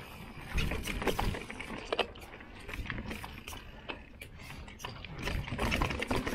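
Mountain bike riding down a rough trail: tyres rumbling over the ground while the bike rattles and knocks irregularly over bumps.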